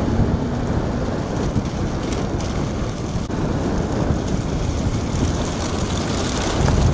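Steady wind and road noise from a vehicle moving at speed, with wind buffeting the microphone.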